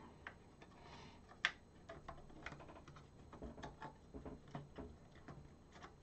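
Faint, scattered clicks and light taps of plastic connectors and cables being handled while a dead-test harness is fitted to a Commodore 64 board, with one sharper click about a second and a half in.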